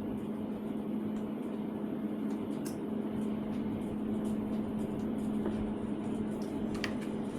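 Steady machine hum with one low, even tone, carrying a few faint light clicks of small metal items being handled.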